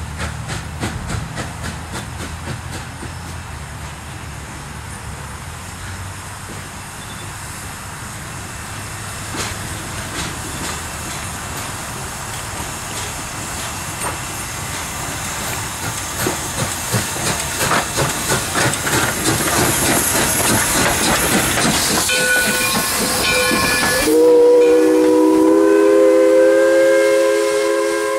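2-8-0 Consolidation steam locomotive working past under steam, its exhaust chuffs coming faster and louder with hissing steam as it draws close. About four seconds before the end the chuffing cuts off and a multi-note steam whistle blows one long chord.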